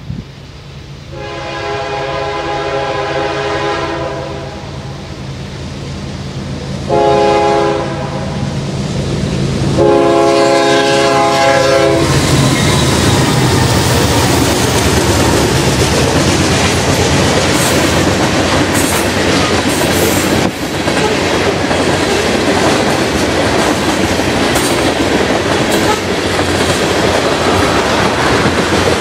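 A freight train's lead locomotive, a CSX ES40DC, sounds its horn for a grade crossing three times: a long blast, a shorter one, then another of about two seconds. The locomotives then pass close by, and the clickety-clack and rumble of grain hoppers and tank cars follow, with occasional squeals and knocks from the wheels.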